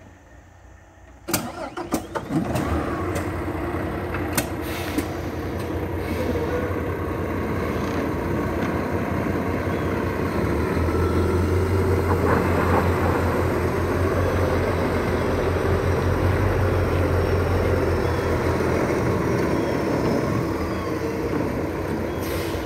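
A truck engine starting about a second in, with a few sharp clicks, then running steadily with a low drone that grows heavier through the middle.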